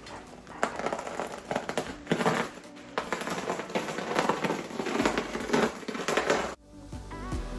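Plastic packaging crinkling and crackling as a car spoiler is unwrapped, over background music. The crinkling stops abruptly near the end, leaving the music.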